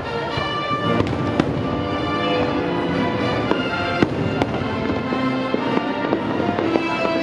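Fireworks bursting in a string of sharp bangs, the loudest about four seconds in, over the fireworks show's music soundtrack.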